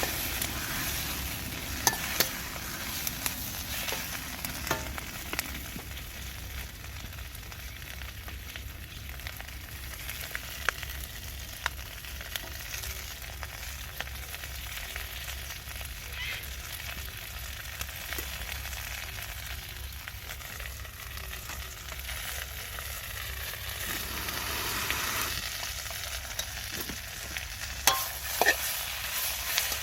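Food sizzling and frying in a Chinese wok while being stir-fried, a steady hiss broken by a few sharp clinks against the pan, with a pair of them near the end.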